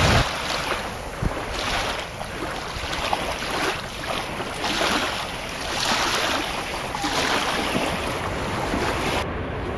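Outdoor rushing noise of wind and lapping water, swelling and easing roughly once a second. The upper hiss drops away sharply near the end.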